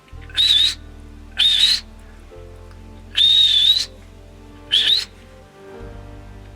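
Four sharp, breathy whistles, each under a second long and spaced a second or more apart, over background music with low sustained chords.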